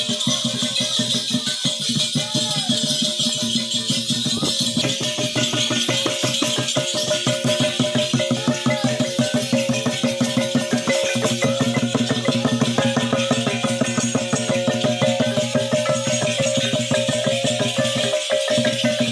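Timorese gong-dance music: gongs ringing in a fast, steady beat with a hand drum struck by several women, and the shaking jingle of dancers' ankle rattles.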